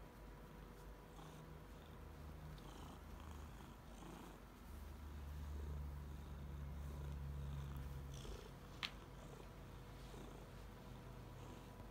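A year-old house cat purring steadily while being stroked, the purr growing louder for a few seconds in the middle. A single short click sounds about nine seconds in.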